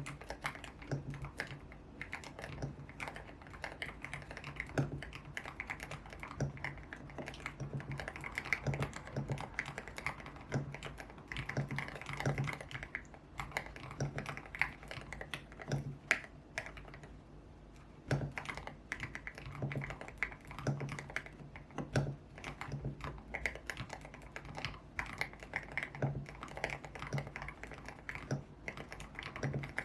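Continuous typing on a YUNZII X75 Pro mechanical keyboard with lubed Kaith Jellyfish switches, a tape mod and solid keycaps: rapid, irregular key presses, with a brief pause about seventeen seconds in.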